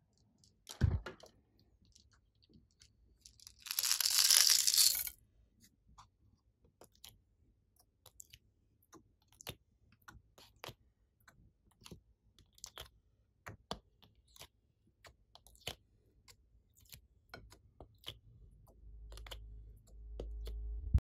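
Hands working a plastic tray of slime pieces: scattered soft clicks and taps, with a loud rustling burst of about a second and a half around four seconds in.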